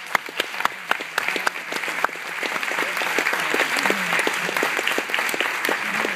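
Audience applauding. Loud single claps close by at first, swelling after about two seconds into dense, steady applause.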